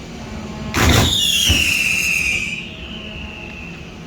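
Fireworks: a sharp bang about a second in, a second thud just after, and a high whistle that falls slowly in pitch for about two and a half seconds, typical of a whistling firework effect.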